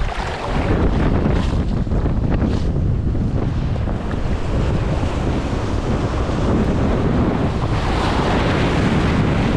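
Wind buffeting the microphone over the wash of sea waves breaking, with one wave's hiss swelling louder near the end.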